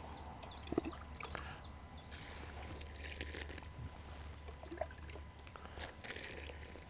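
Faint sloshing and squelching of wet groundbait being mixed: carp stick-feed mix with canned sweetcorn. A few small clicks are scattered through it.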